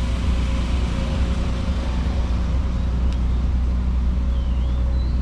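Boat engine running steadily with a low, even hum as the river boat cruises along. A few faint high chirps sound near the end.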